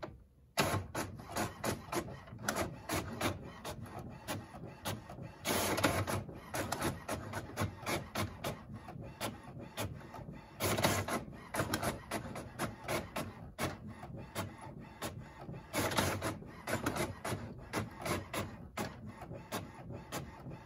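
HP OfficeJet Pro 8035e inkjet printer printing pages at about 5 to 6 seconds a page: a fast run of mechanical clicks, with a louder surge of feed noise about every five seconds as each page goes through.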